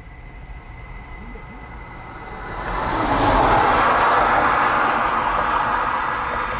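Low road rumble of a moving vehicle, with a rushing noise that swells about two and a half seconds in and slowly fades.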